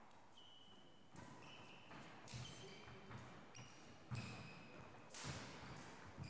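Faint badminton play on a wooden hall floor: sharp racket-on-shuttlecock knocks and footfalls about once a second, with short high squeaks of court shoes.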